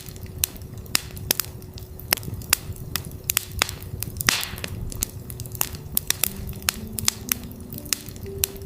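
Campfire crackling and popping with irregular sharp snaps and a brief hiss about four seconds in, over a steady 369 Hz tone. A few soft synth notes step upward near the end.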